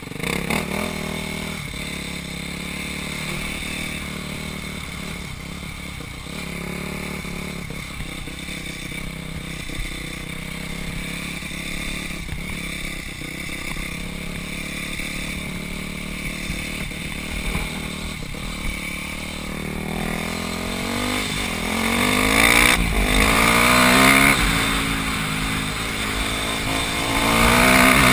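Dirt bike engine heard from the rider's helmet, running steadily at low revs for about twenty seconds, then revving up and getting louder as the bike accelerates near the end.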